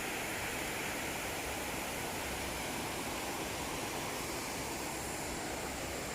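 Water of a waterfall rushing steadily: an even, unbroken hiss.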